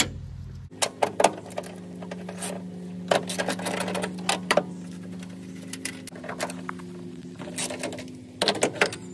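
Socket ratchet wrench clicking in quick bursts while loosening the 14 mm bolts of the radiator brackets, over a steady low hum.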